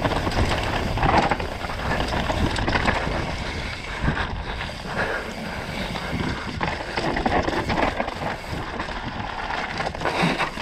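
Mountain bike descending a rough dirt singletrack: tyres running over dirt and stones, with a constant patter of knocks and rattles from the bike over the bumps, and wind buffeting the helmet camera's microphone.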